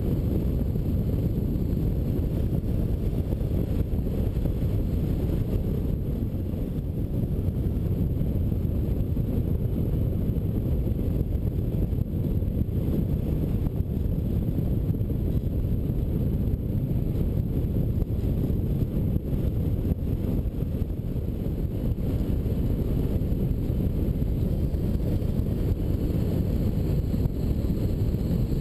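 Steady airflow buffeting the microphone of a camera mounted on a hang glider's wing in flight: a low, even wind rumble with no other sound.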